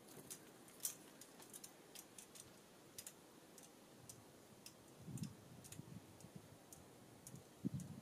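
Birds pecking at a seed block: irregular, sharp beak taps, a few to several a second, with a few dull low thumps about five seconds in and again near the end.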